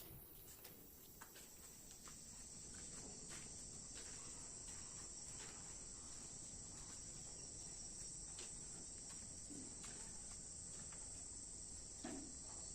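Insects chirring as a steady, faint, high-pitched drone, with a few faint scattered clicks.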